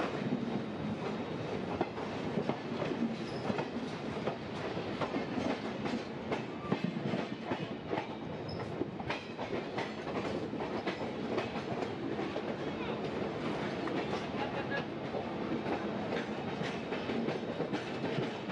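Train running at speed alongside another passenger train on the next track. Steel wheels clatter over rail joints in an irregular stream of clicks over a steady rushing rumble, heard through an open coach door.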